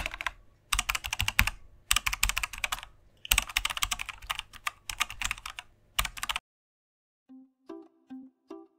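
Computer keyboard typing in quick runs of keystrokes with short pauses, stopping about six seconds in. Near the end, music with short, repeated plucked notes begins.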